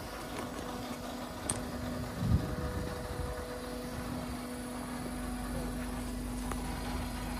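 A machine running with a steady hum. A single dull thump comes about two seconds in.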